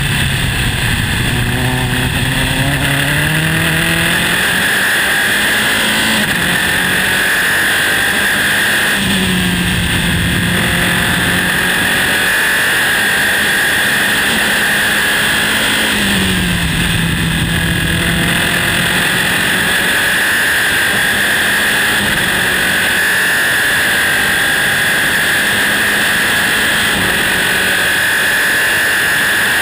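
Onboard sound of a Dallara-Volkswagen Formula 3 car's four-cylinder racing engine at full throttle. The engine note drops at the start, climbs through the gears over the next few seconds, then holds high revs, dipping briefly at each later upshift. A steady rush of wind noise runs underneath.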